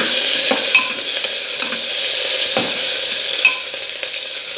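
Chopped onion frying in hot oil, sizzling steadily while it is stirred, with a few light scrapes and clicks of the spoon against the pan.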